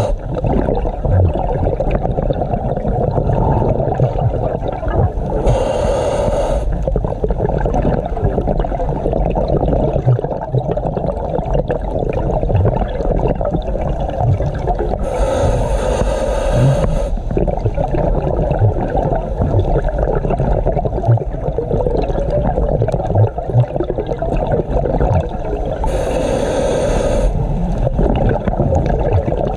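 Scuba diver breathing through a regulator underwater: a hissing breath three times, about ten seconds apart, over a constant rush of water and bubble noise with scattered low knocks.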